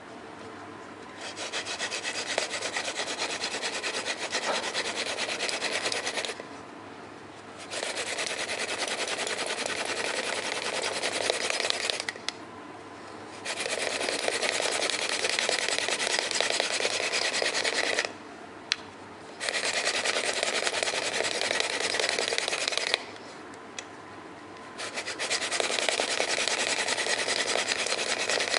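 Hand-drill friction fire: a horseweed spindle spun between the palms, grinding into a Western red cedar hearth board with a dry rasping rub. It goes in five bouts of about four to five seconds, with short pauses between as the hands go back to the top, building heat toward a coal.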